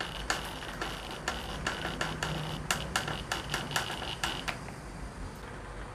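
Ryobi Kyocera BID10XR cordless impact driver slowly driving a screw into a board, its hammer mechanism going "tek tek tek" at about three to four blows a second over a faint motor whine, like turning a screw by hand. The impacting stops about four and a half seconds in.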